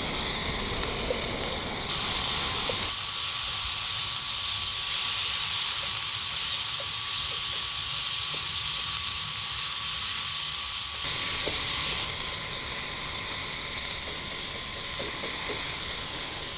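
Ground meat and chopped onion sizzling in a frying pan over a charcoal grill, a steady hiss that is louder for about ten seconds from two seconds in, with a few light taps of a wooden spatula stirring it.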